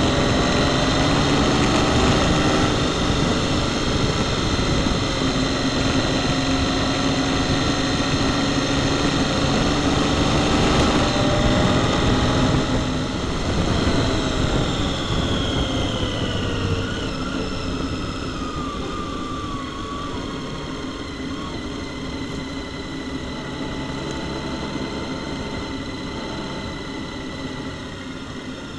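Onboard sound of a Honda Gold Wing motorcycle under way: a steady engine drone mixed with wind and road noise. About halfway through, the engine pitch slides down and the sound gets a little quieter as the bike eases off.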